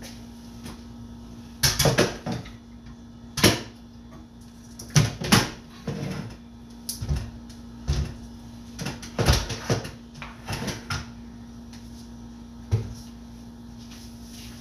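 Irregular knocks and clatters of bottles and a dish drying rack being handled and set down at a kitchen sink, with a steady low hum underneath.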